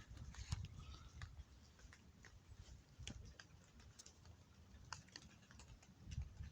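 Near silence: faint scattered small clicks over a low rumble.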